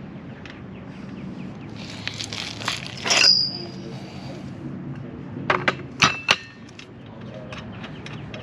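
Metal objects being handled: light clicks, a clatter with a short high ring about three seconds in, then three sharp metallic clanks close together near the middle.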